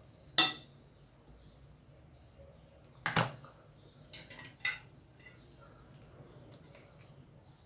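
A few sharp kitchen clinks and knocks: a metal spoon against a glass mixing bowl and small fluted metal moulds set down on a granite counter. The loudest is a ringing clink about half a second in, then a knock near the middle and a couple of lighter clicks.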